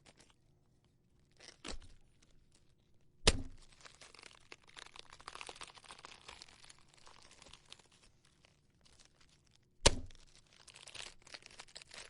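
A hammer struck into a soft, crunchy object for gore foley: a light blow, then two heavy ones, each followed by a few seconds of crackling and tearing as the struck material breaks apart.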